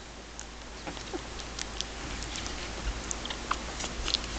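Faint scattered little clicks and rustles from 18-day-old Shih Tzu puppies squirming on a towel.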